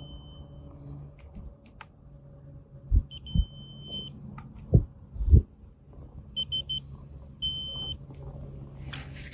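Electronic beeps: one at the start, a short and a long one about three seconds in, a quick run of short beeps, then a longer one near the end. Between them come dull knocks of a rifle and scope being handled, the loudest two around five seconds in.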